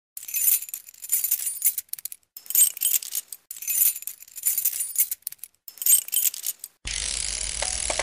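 Metallic jingling and rattling in four bursts, part of an intro sound effect. About seven seconds in it gives way to a steady hiss with a low hum.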